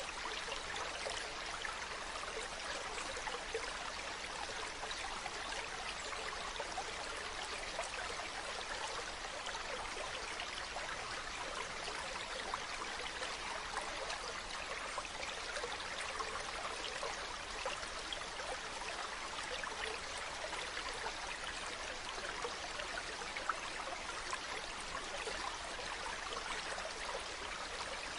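A mountain stream running over rocks: a steady, even rush of water with fine splashing and trickling.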